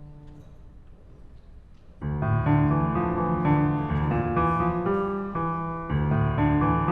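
Solo piano: a held chord dies away, then after a short pause loud playing starts about two seconds in, with chords changing rapidly.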